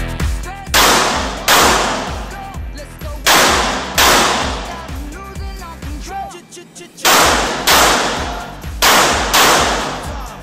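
Handgun shots on an indoor range, eight in four pairs with the two shots of each pair a little over half a second apart, each ringing off the hard walls. Pop music plays underneath.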